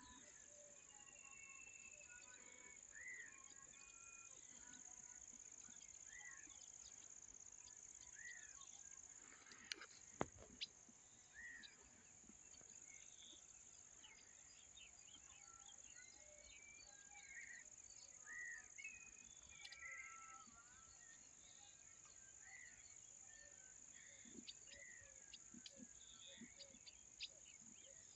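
Faint outdoor insect chorus: a steady high-pitched drone, with a bird repeating a short arched call every few seconds. A couple of sharp clicks come near the middle.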